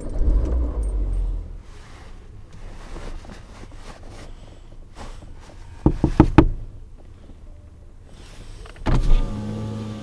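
Car sounds heard from inside the cabin: a low engine and road rumble at the start that dies down, a cluster of sharp knocks about six seconds in, and near the end a steady motor hum like a power window winding down.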